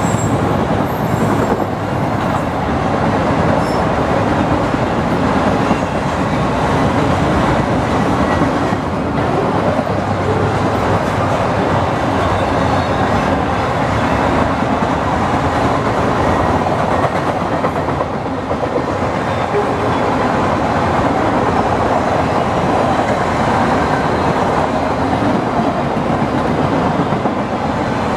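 Freight train of auto rack cars rolling past, a steady, loud rumble of steel wheels on the rails.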